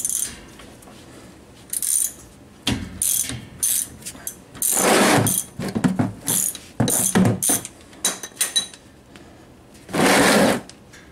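Ratchet wrench with a 14 mm hex (Allen) bit clicking in a series of short bursts as it turns the rear axle's drain plug.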